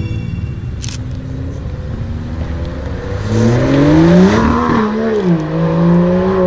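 An Aston Martin DB11 accelerating past. About three seconds in, the engine note climbs and gets louder, drops sharply once at an upshift, then holds a steady lower pitch as the car pulls away.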